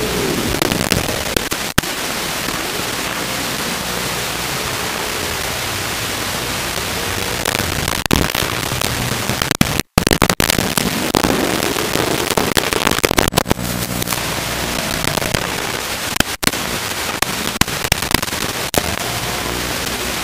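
Steady hiss of radio static on an analog FPV video receiver's audio, broken by crackles and clicks, with a brief cut to silence about halfway through as the video signal breaks up.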